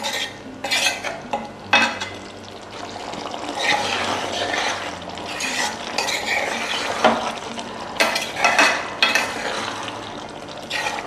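A spoon stirring and scraping thick chicken keema gravy in a cooking pan, in irregular strokes, over a steady simmering sizzle.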